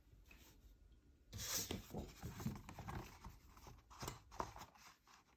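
Faint rustling of cardstock being handled, beginning about a second and a half in, followed by scattered small taps and clicks.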